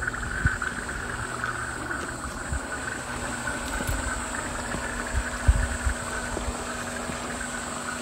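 Steady, high insect buzzing from the surrounding woods, with a few short low thumps on the microphone, the loudest about five and a half seconds in.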